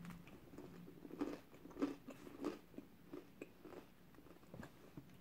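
A person biting into and chewing a Subway sub bite, a small bread roll with beef filling: faint, irregular mouth sounds of chewing with soft crunches of the bread.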